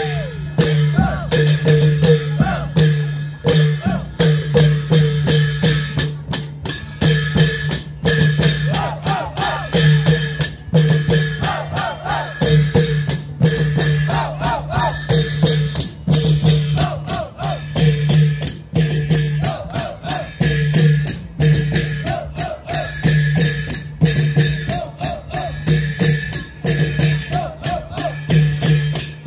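Thai klong yao (Isan long drum) ensemble playing, many drums struck together in a fast, steady rhythm.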